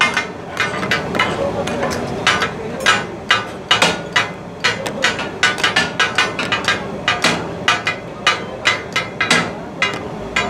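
Two steel spatula blades clattering and chopping on a large flat griddle as goat offal is minced, several uneven ringing strokes a second: the rhythmic clatter that gives taka-tak its name. A steady hiss of sizzling and steam runs beneath the strokes.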